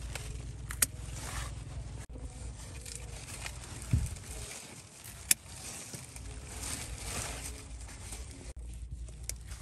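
Scissors snipping pumpkin flower stems, two sharp snips about a second in and again after five seconds. Leaves rustle throughout, over a low steady rumble, with a soft thump in between.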